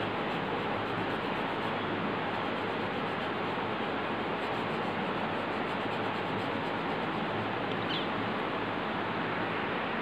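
Steady, even hiss of background noise at a constant level, with no rhythm or separate strokes; a brief faint chirp about eight seconds in.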